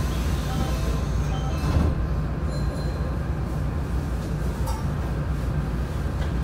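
Nankai 8300 series electric train running on the line, heard on board: a steady rumble of wheels on rail with faint high tones from the traction motors' inverter drive.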